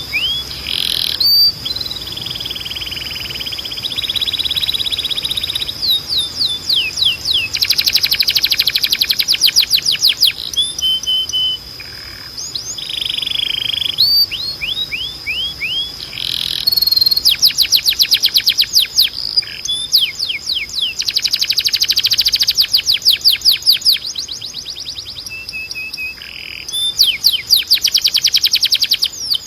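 Timbrado canary singing: phrases of fast trills of rapidly repeated high notes alternate with held, rolling notes, in several bursts separated by short pauses.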